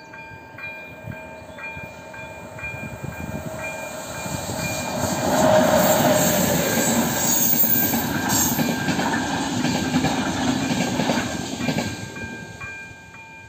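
Level-crossing warning bell of an AŽD 97 crossing signal ringing about twice a second, while a locomotive-hauled express passenger train passes over the crossing. The train's rumble and wheel clatter build about four seconds in, are loudest around six to eight seconds, and fade near the end, when the bell is heard clearly again.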